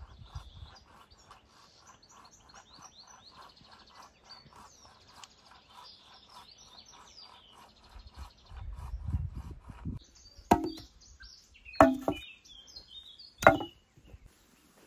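Birds chirping and singing, then three sharp chopping blows into wood, a second or so apart, which are the loudest sounds.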